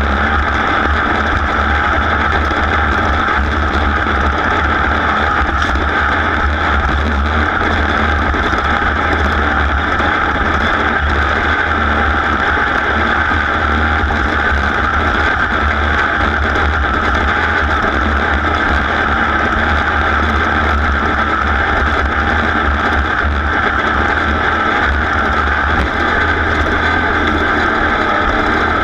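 Race vehicle's engine running hard at a steady, high pace under way, loud and unbroken throughout.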